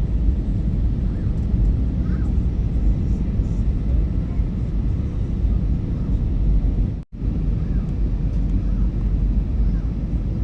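Airbus A320 cabin noise in flight: a steady low rumble of the jet engines and rushing air. It drops out for an instant about seven seconds in, then resumes unchanged.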